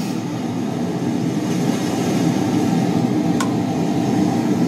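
Steady rumble of ocean surf and wind from the ocean video, played back through computer speakers, growing slightly louder, with one sharp click a little over three seconds in.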